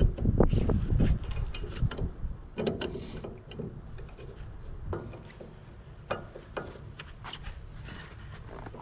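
Irregular metallic clicks and knocks of hand tools and metal parts being worked during tractor repair, loudest and densest in the first second or so, then sparser.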